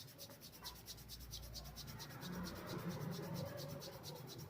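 Fingertips rubbing powdered skin beside the ear back and forth in quick, even strokes: a faint, rhythmic brushing.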